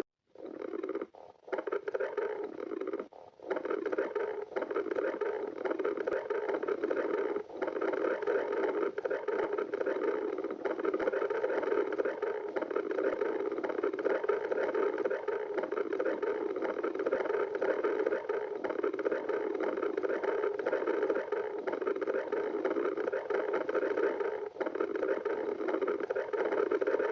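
Stomach growling: a continuous churning noise that breaks off briefly a few times in the first few seconds, then runs on steadily.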